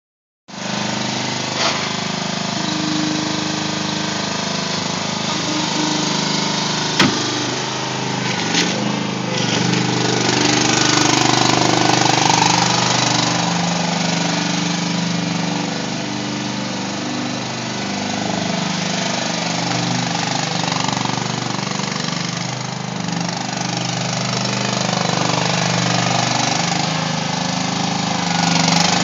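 Small engine of a ride-on concrete power buggy running as it is driven about, its level rising and falling a little with the throttle. A few sharp knocks sound over it, the loudest about seven seconds in.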